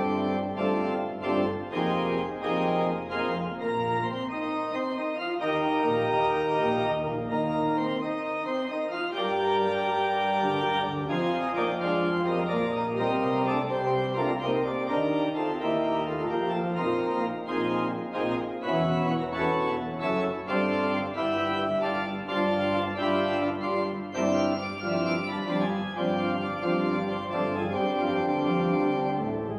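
Church organ playing a piece: full chords of long sustained notes that change every second or so over a moving bass line.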